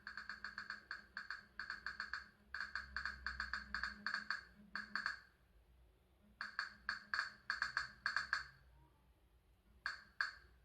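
Faint percussive music: quick runs of short, same-pitched wood-block-like strikes, about six to eight a second, in bursts separated by short pauses.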